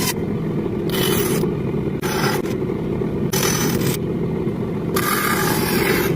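Wood being scraped in several separate rough strokes, over a steady low hum.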